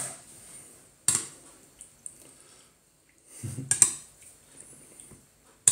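Metal spoon clinking and scraping against a porcelain bowl while stirring a soupy mash of stuffed pepper and yogurt. There are sharp clinks about a second in, near four seconds and at the end, with soft scraping between them.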